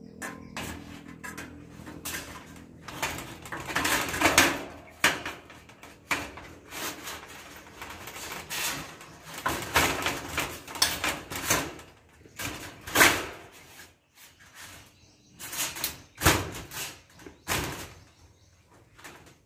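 Thin mini-rib metal wall cladding sheet being pushed and fitted into place by hand, rattling and banging irregularly as the sheet flexes against the wall. The loudest bangs come about four and thirteen seconds in.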